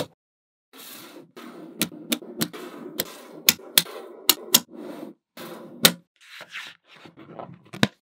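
Small neodymium magnet balls clicking sharply as they snap together, about ten clicks in all, over a continuous rattle of balls rubbing and rolling against one another. The rattle thins out after about six seconds.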